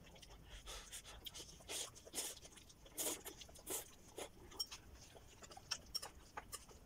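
Close-up chewing of crisp raw vegetables: irregular wet crunches, heaviest in the middle, then a few light clicks near the end.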